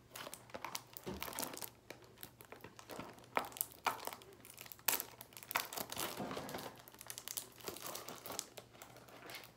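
Packaging of a home pregnancy test being fumbled open by hand: irregular crinkling and crackling of cardboard and wrapper, with sharper snaps about three and a half and five seconds in.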